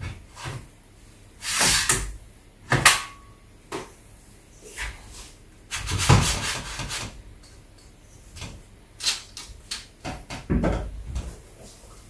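Knocks, clicks and short scrapes from handling the parts of a Qicycle EF1 Plus folding electric bike: the seat post is slid down into the frame tube, and the folding handlebar stem is raised near the end.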